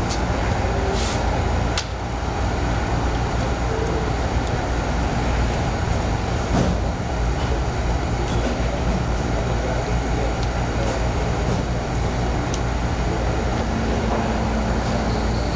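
A steady low rumble of background noise, with a few light clicks and knocks as hoses and fittings are handled in the engine bay.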